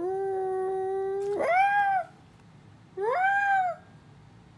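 A Pomsky vocalizing with husky-like calls. It holds a long, steady whining note for about a second and a half, which breaks into a call that rises and falls in pitch. A second rising-and-falling call follows about a second later.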